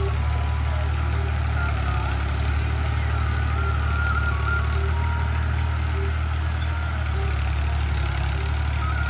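Ghazi tractor's diesel engine running steadily under load as it pulls a tine cultivator through stubble.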